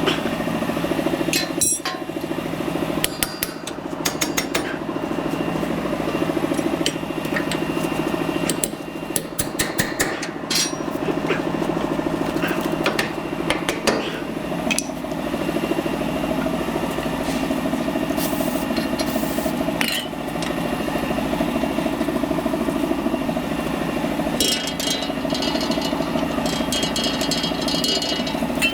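An engine running steadily, with scattered metal knocks and clinks from tool work on the suspension.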